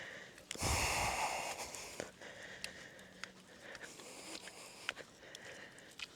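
A heavy breath out close to the microphone, starting about half a second in and lasting about a second and a half, followed by soft breathing and faint scattered clicks.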